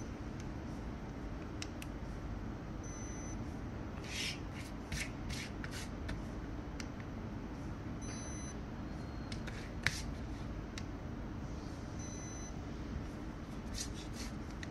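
Paper paint-swatch cards of a fan deck rustling and rubbing as they are handled, with a sharp click near the middle. A short high electronic beep sounds three times, a few seconds apart, as the handheld colour-sensor pen takes each scan.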